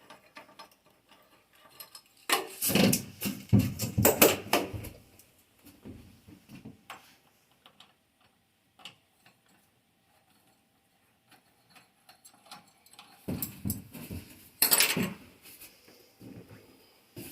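Clanking and knocking of metal parts and tools being handled, in two bursts with a quiet stretch between.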